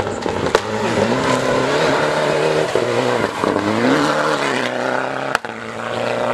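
Mitsubishi Lancer Evolution rally car's turbocharged four-cylinder engine under hard throttle on a gravel stage, its pitch dropping and climbing again through gear changes. A sharp pop comes about five seconds in, followed by a brief dip as the throttle lifts.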